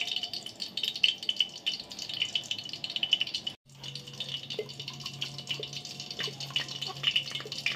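Hot ghee sizzling in a pot, a continuous patter of small crackles. After a brief break a little before halfway, a steady low hum runs under the sizzle.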